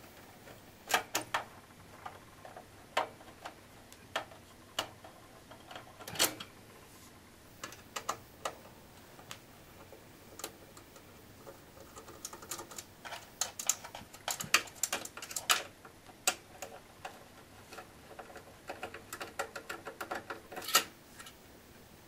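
Irregular small metal clicks and ticks of a screwdriver backing out the screws that hold a power supply to the rear of a desktop PC case, with clusters of quick clicks in the second half.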